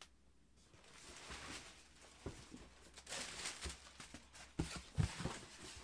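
Wrapping paper rustling as a pair of leather boots is handled and packed, with a few dull knocks, the loudest about five seconds in.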